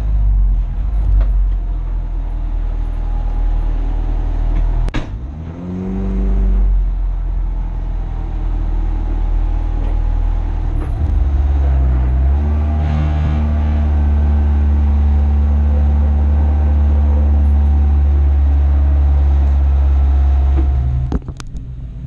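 Renault Clio Cup race car's turbocharged four-cylinder engine heard from inside the cabin, running at low revs as the car creeps along. The revs rise briefly about five to six seconds in, then it settles into a steady drone, and the level drops sharply near the end.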